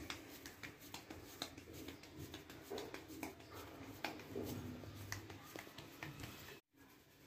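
Faint handling sounds of hands patting and shaping soft potato dough, with scattered light clicks and taps against a steel plate.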